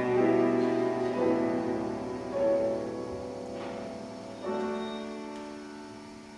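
Live chamber quartet of flute, violin, cello and piano playing the closing bars of a piece. Sustained notes grow steadily softer, then a final soft chord about four and a half seconds in dies away.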